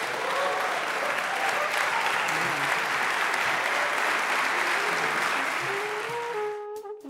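A congregation applauding, with a few voices calling out among the clapping. About six and a half seconds in, the applause cuts off abruptly and instrumental music begins.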